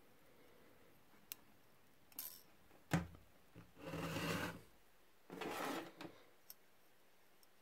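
Handling of a wet steel wrench just lifted out of an electrolysis bath: a few small clicks, a sharp knock about three seconds in, then two short stretches of rubbing and scraping with a couple more ticks.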